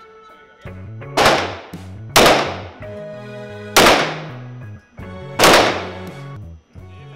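Four handgun shots at irregular intervals, each a sharp crack with a short decaying tail, over background music with a moving bass line.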